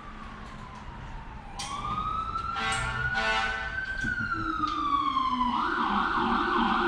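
Emergency vehicle siren outside, wailing slowly down and up in pitch, then switching to a fast yelp near the end, with a brief blast about three seconds in.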